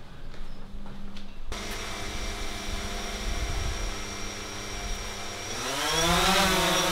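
DJI Phantom 4 quadcopter's four motors and propellers running steadily at low speed, starting about a second and a half in. Near the end they spin up with a rising whine as the drone is throttled for take-off.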